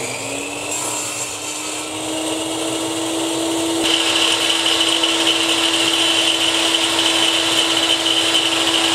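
Electric woodworking saw running up to speed with a steady whine, then cutting into a wooden board from about four seconds in, with a harsher, louder sound that holds steady.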